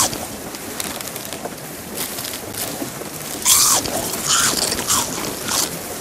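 Sea water washing and splashing around a small boat on open water: a steady wash with several short splashes in the second half.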